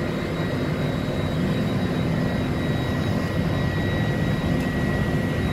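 Cockpit noise of a Boeing 747-400 freighter in its initial climb after takeoff: a steady rush of airflow and jet-engine sound, with a thin steady high tone over it.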